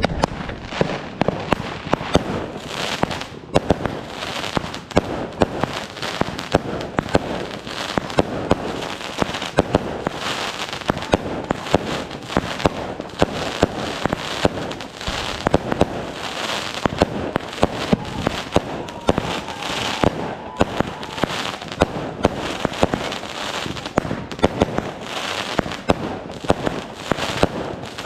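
Fireworks going off without a break: a dense crackle of small pops, with sharper bangs several times a second.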